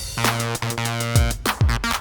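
Acid house groove from a Behringer TD-3 (TB-303 clone) bass synthesizer and a Behringer RD-9 (TR-909 clone) drum machine. A held, buzzy acid bass line plays under several kick drum hits and fast hi-hats.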